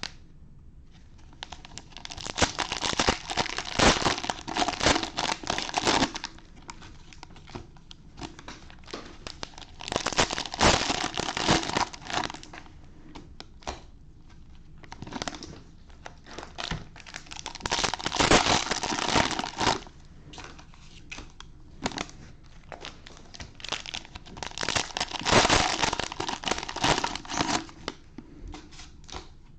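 Cellophane wrapping on trading-card cello packs crinkling and tearing as the packs are handled and pulled from the box. It comes in four long spells of crinkling, with scattered small clicks between them.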